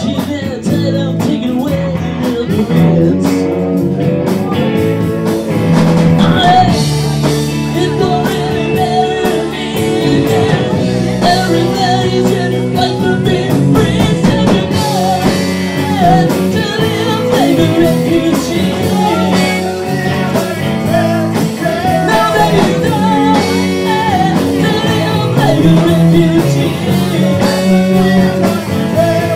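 A rock band playing live, a lead voice singing over electric guitar and drums.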